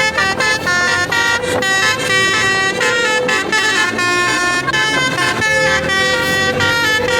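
Bus telolet horn playing a quick tune: steady horn notes that jump from pitch to pitch every fraction of a second, with short breaks between phrases.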